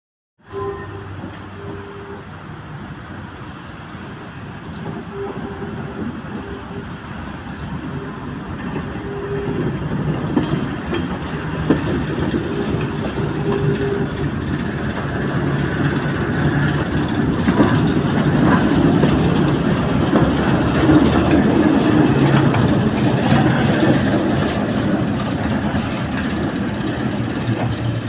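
Class 08 diesel shunter's English Electric six-cylinder engine running as it moves a GWR autocoach slowly past at walking pace, growing louder as it approaches. The coach's wheels click over the rail joints.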